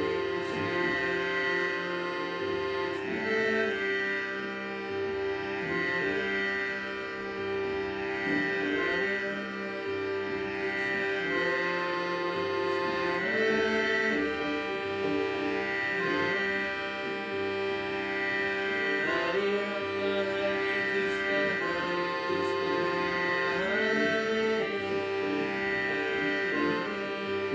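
Hand-pumped Indian harmonium playing a slow devotional bhajan melody of sustained reedy notes that change every second or two.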